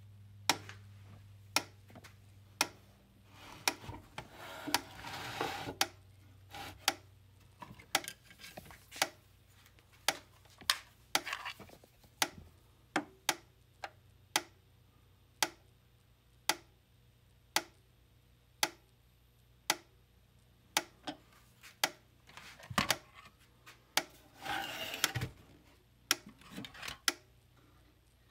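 Gallagher M800 electric fence energizer clicking about once a second as it fires its pulses. Handling rustles come twice, a few seconds in and again near the end.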